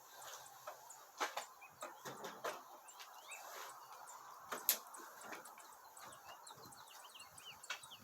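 Faint background with small birds chirping in quick short calls through the second half, and a few light clicks and taps, the sharpest one a little before the five-second mark.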